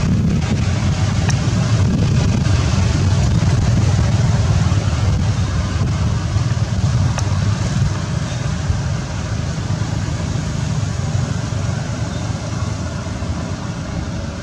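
Steady low background rumble with a hiss above it, easing slightly in the second half.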